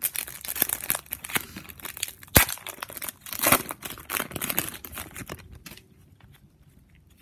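Foil wrapper of a 2018-19 NBA Hoops Winter trading-card pack being torn open and crinkled by hand, a dense crackling with one sharp crack about two and a half seconds in. The crinkling stops about five and a half seconds in.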